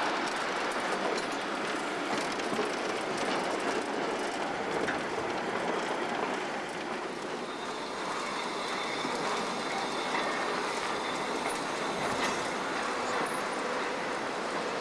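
Uncoupled freight wagons rolling by gravity off the hump of a marshalling yard. Their steel wheels rumble and click over the rails, with faint wheel squeal in the second half.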